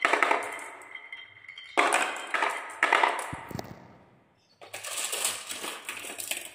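Glass marbles rolling and clacking on a wooden marble run: a few sharp clacks, each ringing briefly, in the first three seconds, a short lull, then a dense rattle of rapid clicks.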